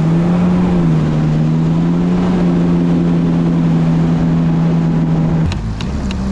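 Boat motor running steadily at trolling speed, its pitch shifting slightly about a second in. Near the end it cuts off abruptly and a few sharp clicks follow.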